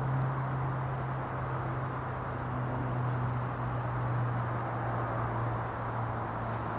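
A steady low drone, such as a distant engine, that drifts slightly lower in pitch, with a few faint bird chirps above it.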